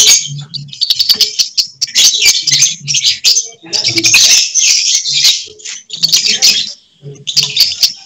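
Lovebirds singing fast, chattering trills in long runs of a second or two with short breaks and a brief pause near the end: the continuous 'konslet' song judged in lovebird contests.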